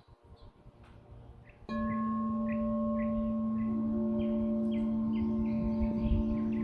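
Lower chakra sound bowl starting to sing about a second and a half in, then ringing at an even level with a low hum and higher overtones; a further tone joins about two seconds later.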